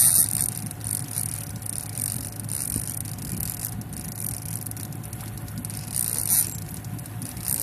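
Boat motor running steadily at low speed, with short bursts of high hiss over it, loudest at the start and again about six seconds in.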